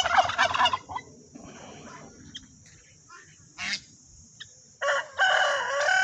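A turkey cock gobbles at the start, a rapid rattling burst about a second long. A few short faint bird calls follow. Near the end a rooster crows, one long call of about a second and a half.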